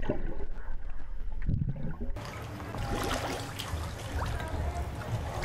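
Water in a swimming pool heard from below the surface for about two seconds, a muffled low rumble with a short burst of bubbling, then cutting abruptly to splashing at the surface as a swimmer strokes through the water.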